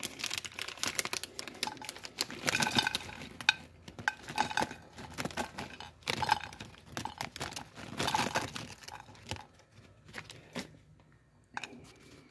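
Plastic bag crinkling and rustling in irregular bursts as hemp flower buds are shaken out of it onto a plate, the handling dying down near the end with a couple of light clicks.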